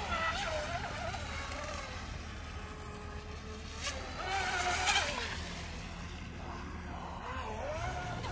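WLtoys WL916 RC speedboat running flat out, its 4000kV brushless motor whining, the pitch wavering up and down as the hull hops. The 35 mm prop is too big and the boat is walking all over the water. A louder burst of splashing spray comes about four to five seconds in.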